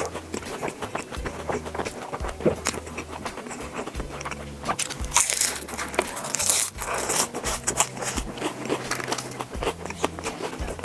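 Close-up eating sounds: biting and chewing with many irregular small crunches and mouth clicks.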